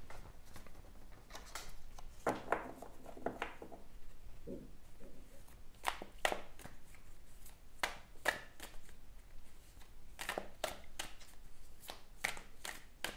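Oracle cards being shuffled and handled by hand: a string of irregular sharp flicks and taps.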